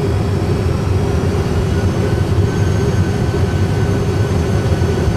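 Steady cockpit noise of an Airbus A320 flight simulator on short final: an even low rumble of simulated engines and airflow with a faint hum underneath.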